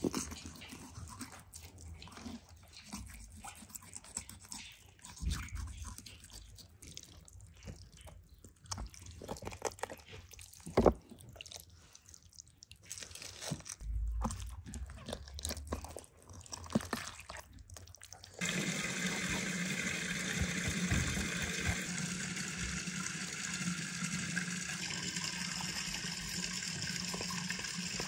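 Knife cutting and working through a raw grass carp on a wooden board: scattered wet squelches, crunches and clicks of blade on skin, bone and board. About two-thirds of the way in, a steady rushing noise with a low hum starts suddenly and continues.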